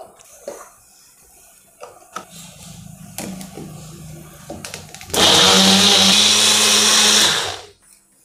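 Electric mixer grinder running for about two and a half seconds, blending chunks of muskmelon into a puree, then switching off. A few light clicks and knocks come before it.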